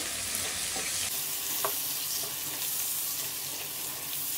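Chopped onions, bay leaves and whole spices sizzling steadily in hot mustard oil in a stone-coated wok, stirred with a wooden spatula that scrapes and taps lightly against the pan a few times.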